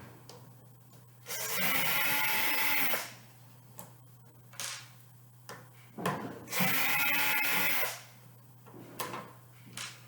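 Cordless drill-driver running in two bursts of about a second and a half each, backing screws out of the heater's plastic controller housing, with a few clicks and knocks of handling between them.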